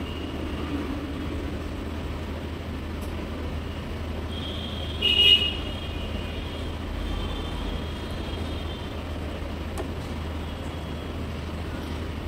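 A hot-air rework station blows steadily on a small IC on an iPhone display's flex cable to melt its solder, over background street traffic. A vehicle horn honks briefly about five seconds in.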